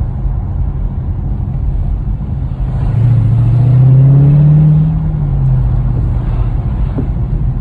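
Dodge Charger Scat Pack's 392 (6.4-litre) HEMI V8 running under way with a steady low rumble; about three seconds in it revs up in a rising note that peaks and eases off after about two seconds.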